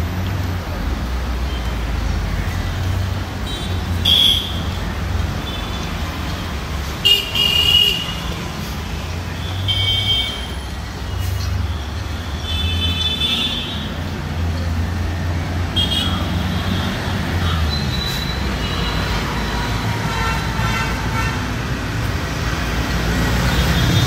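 Busy city street traffic rumbling steadily, with short vehicle horn honks sounding about five times at intervals of a few seconds.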